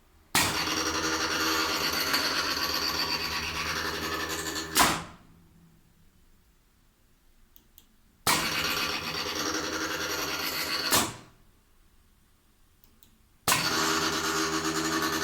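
Motorised tool-changer turret of a CNC lathe indexing: its motor runs steadily for about four seconds and stops with a sharp clunk as the turret locks, runs again for about three seconds ending in another clunk, then starts a third time near the end.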